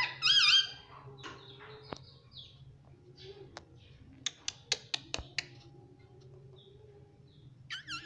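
Indian ringneck parakeet giving a short loud squawking call in the first half second, then soft low chatter with a handful of sharp clicks through the middle, and the start of another call near the end.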